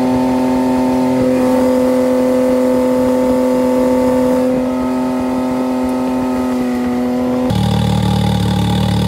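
Can-Am Maverick X3's three-cylinder engine running straight-piped, with the MBRP silencer off, very loud and held at one steady high pitch at about 5000 rpm under way. A second and a half before the end it switches abruptly to a lower steady note.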